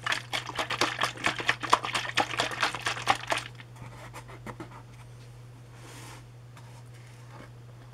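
A plastic drinking-yogurt bottle being handled, giving quick crinkling and clicking for about three and a half seconds, then only a few faint rubs and knocks over a low hum.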